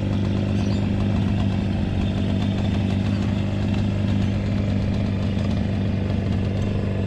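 Velorex cyclecar's rear-mounted 350cc Jawa two-stroke engine idling steadily.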